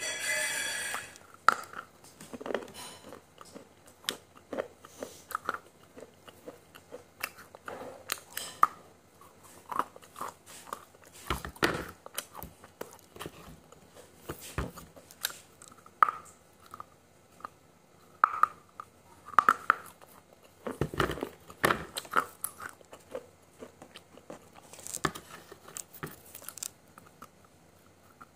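Close-miked crunching and chewing, with sharp bites now and then. It sounds like pieces of a baked clay cup being bitten off and ground between the teeth.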